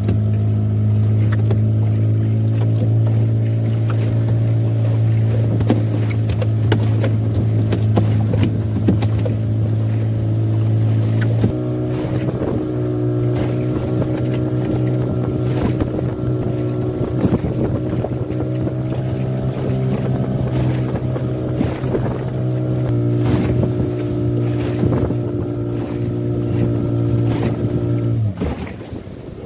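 Outboard motor driving a small fibreglass boat at speed, a steady engine hum with water splashing and slapping against the hull. The engine note shifts twice, and near the end it drops away briefly before picking up again.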